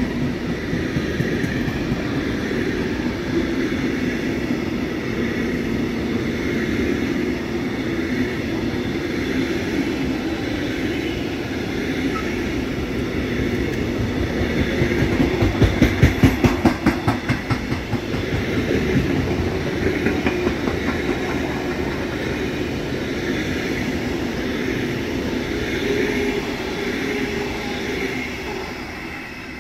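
Container freight train wagons rolling past: a steady rumble of wheels on rail, with a brief, louder run of rapid clicking wheel beats about halfway through. The sound fades near the end as the last wagons move away.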